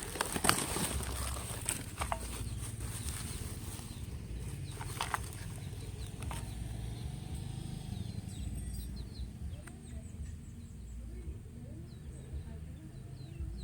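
Scattered light clicks and knocks from handling, over a steady low background hum, with birds chirping faintly in the background.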